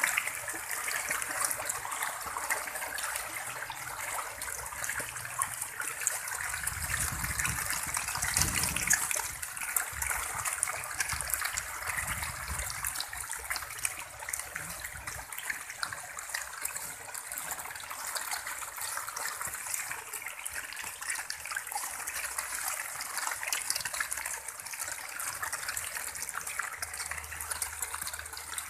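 Densely stocked catfish thrashing at the surface of a tarpaulin pond in a feeding frenzy, giving continuous splashing and churning water, somewhat heavier for several seconds from about seven seconds in.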